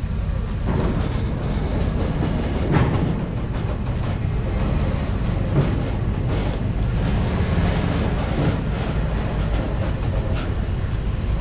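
Ford E-Series van driving up onto a wooden-deck flatbed trailer: a steady low engine rumble with a few knocks and clunks as its tyres roll onto the ramps and deck boards, the loudest about three seconds in.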